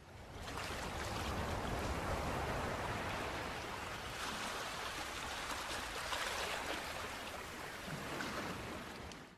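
Ocean waves washing in a steady hiss with slow swells, fading in over the first second and cutting off suddenly at the end.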